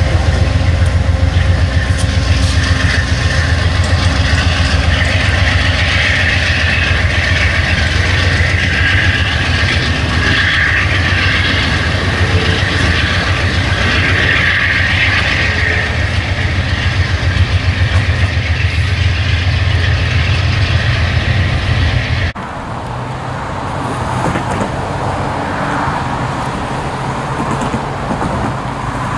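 Amtrak passenger train's cars rolling past close by at speed: a steady rumble and clatter of wheels on the rails. It cuts off abruptly about three-quarters of the way through, leaving a quieter, steady low rumble from a distant approaching freight train.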